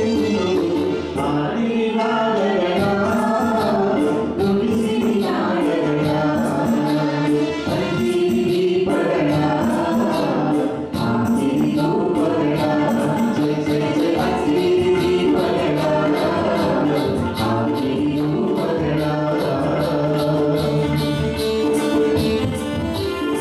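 Kannada folk song (janapada geete) sung live by a man and two women, joining in together into microphones, over a harmonium and a steady percussion beat.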